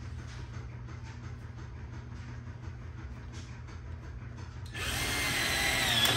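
Power drill starting suddenly about four and a half seconds in and running for about a second and a half. Before it there is only a low steady hum with faint ticks.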